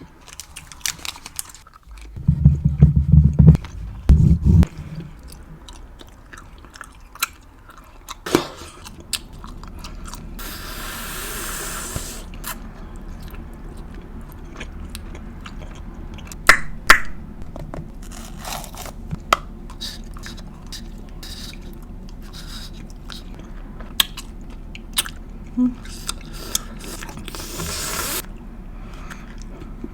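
Close-miked chewing of Hubba Bubba bubble gum: wet smacks and clicks of the mouth working the gum. There are loud low thumps about two to four seconds in and short stretches of hiss around ten seconds in and near the end.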